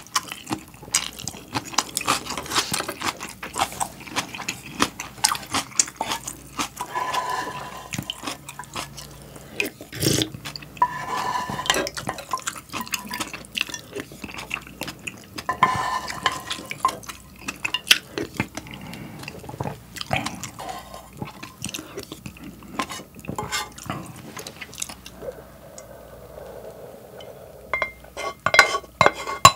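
Close-miked eating of ramen and kimchi: chewing, with chopsticks and a spoon clicking against a saucepan and a glass container. Ramen broth is slurped from a spoon several times. Near the end the broth is drunk straight from the pot, followed by sharp clinks of pot and utensils.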